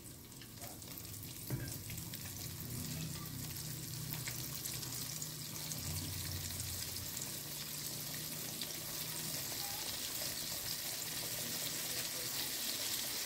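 Flour-coated chicken wings deep-frying in a pot of hot oil: a steady, crackling sizzle that grows gradually louder. A single brief knock about one and a half seconds in.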